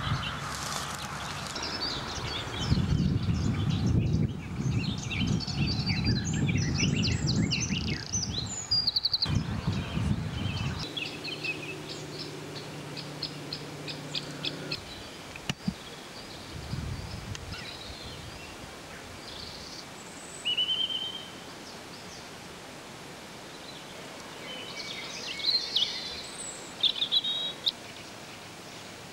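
Wild birds singing and chirping, with several overlapping short calls and trills, heaviest in the first half and again in short bursts near the end. A low rumble sits under the first third.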